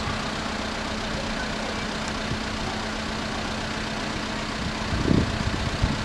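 Steady rumble of road vehicles idling while they wait at a closed level crossing, with a steady low hum. Two dull low thumps come near the end.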